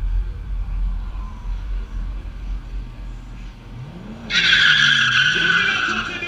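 A low steady rumble, then about four seconds in a car's tyres break into a loud squeal on the drag strip's start pad. A lower engine note rises and falls beneath the squeal.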